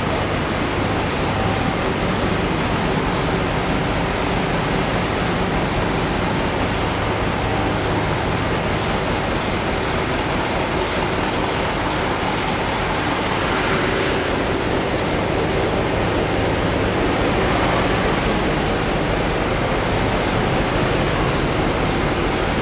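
Steady noise of a bus idling close by: a low engine hum under a broad hiss, with no clear changes.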